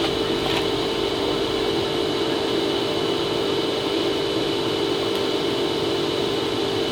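Forced-air waste-oil burner firing a furnace: a steady rush of blown air and flame with a constant low hum from the blower.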